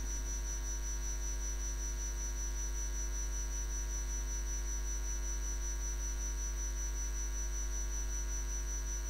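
Steady electrical mains hum with a thin, high-pitched whine above it, unchanging throughout.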